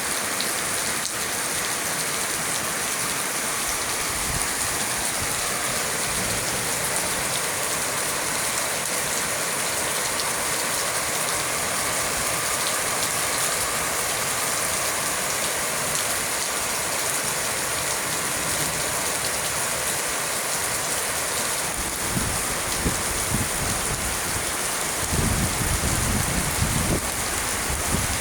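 Heavy rain pouring steadily in a continuous hiss. Near the end, low rumbling gusts of strong wind buffet the microphone.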